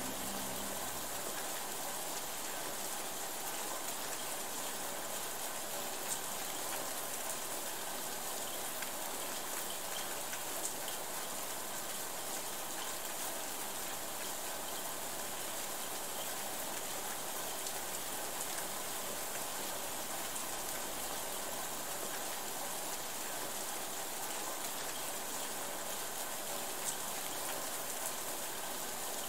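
Steady rain falling, an even hiss of many drops with a few louder single ticks here and there.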